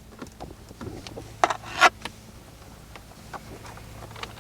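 A braided nylon USB-C cable being handled and plugged in: small clicks and rustles, two louder brief ones a little under two seconds in, over a faint steady low hum.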